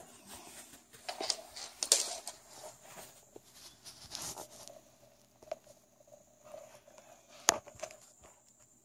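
Irregular rustling and scuffing close to the microphone, with a sharp tap about seven and a half seconds in.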